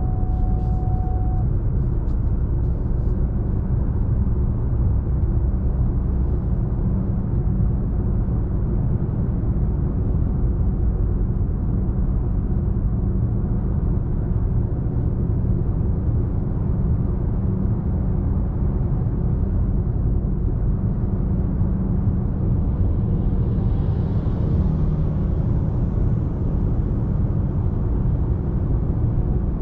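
A Fiat Toro's 2.0-litre diesel engine running steadily while driving, with a constant low rumble of engine and road noise.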